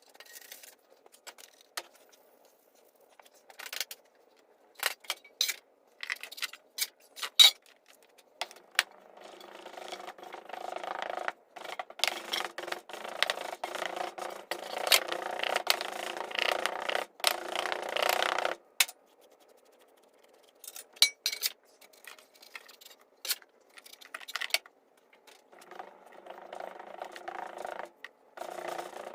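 Scraping and tapping from hand work in a green-sand mold: scattered sharp clicks and knocks, then a long stretch of rough scraping about eight seconds in that lasts about ten seconds, and another shorter one near the end.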